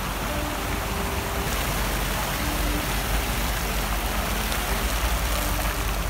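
Fountain jets splashing steadily into a shallow pool, an even rush of falling water, with a low rumble and faint voices underneath.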